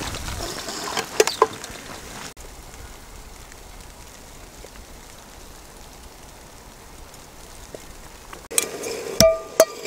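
Small aluminium kettle heating over a tiny camp stove, a soft hiss with a couple of light clinks. Then a quiet, steady hush, and near the end several sharp metallic clinks, one ringing briefly.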